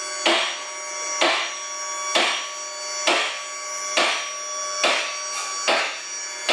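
Car lift raising a car: a steady motor hum with a regular clack about once a second.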